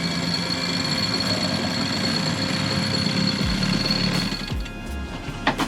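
Background music with sustained tones, fading out near the end, then a sharp click.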